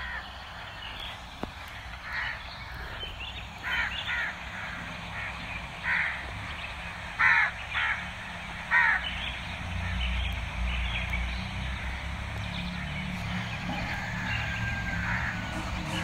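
Crows cawing: a scattering of about seven short, harsh caws, the loudest around the middle, with a low rumble coming up in the second half.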